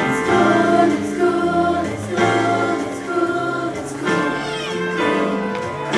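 Music: a choir singing a song in held notes.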